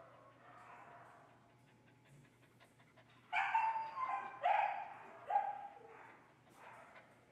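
Hound-mix dog giving a run of four short, high-pitched barks in quick succession about three seconds in, then a fainter one near the end, with soft panting before.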